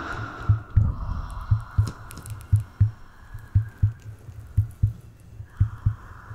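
Slow heartbeat, a low double thump about once a second, over a steady hiss that dims briefly near the end.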